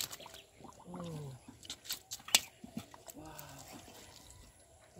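Hands slapping and squelching in wet mud while groping for a catfish, with a sharp wet slap about two seconds in. Short calls that fall in pitch sound in the background, once about a second in and again after three seconds.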